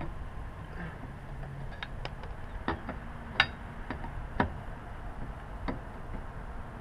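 Scattered sharp metallic clicks and knocks from handling lug nuts and tools during a wheel change. The loudest, a ringing clink, comes about three and a half seconds in.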